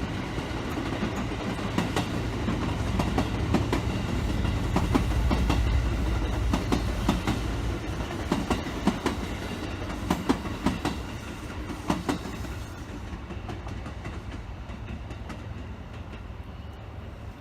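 A train passing on the line, its wheels clacking over the rail joints above a heavy rumble; loudest around the middle, then dying away over the last few seconds.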